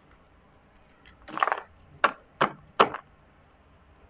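Tarot cards being handled on a table: a short rustle, then three sharp card snaps or taps about 0.4 s apart.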